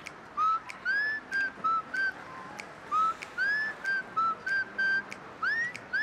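Mobile phone ringtone playing a whistled tune: a rising note followed by a few short notes, the phrase repeating about every two and a half seconds.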